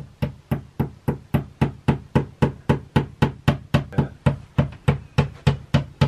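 Claw hammer with a wooden handle tapping a nail into a wall: quick, even strikes, about three to four a second.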